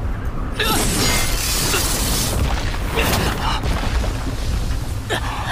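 Sound effects for a magical dark-energy attack: a steady deep rumble, with a loud rushing burst of noise from about half a second in that lasts about two seconds, then a few shorter hits.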